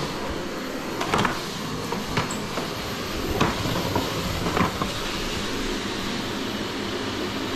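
Plastic bottles knocking and clunking against each other and the shelf as a hand moves them about in a cupboard, about five knocks in the first five seconds, over a steady rushing noise.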